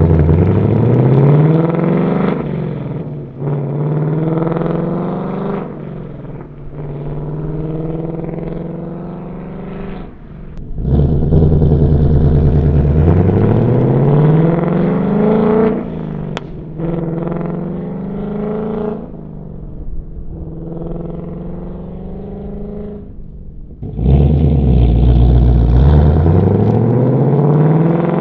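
A Ford Mustang Dark Horse's 5.0 L Coyote V8 accelerating hard through a resonator-delete H/X-pipe exhaust. The engine note climbs steeply in pitch and drops at each upshift, over three separate pulls.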